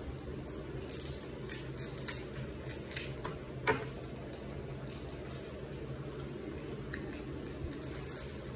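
Candy being unwrapped and eaten: a few short sharp crinkles and mouth clicks in the first half, over a steady low background hum.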